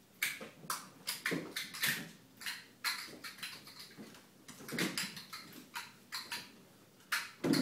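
Kittens' paws and claws skittering and tapping on a hardwood floor as they pounce and play: a rapid, irregular patter of light taps with a few heavier thumps of landings.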